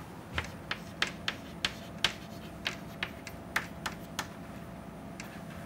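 Chalk tapping and scratching on a blackboard as equations are written: a dozen or so sharp, irregularly spaced taps.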